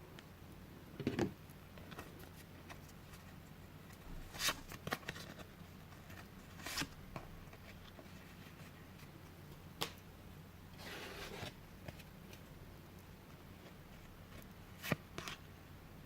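Board-game cards being handled: scattered light taps and clicks as cards are sorted and laid down, with a brief soft rustle about two-thirds of the way through.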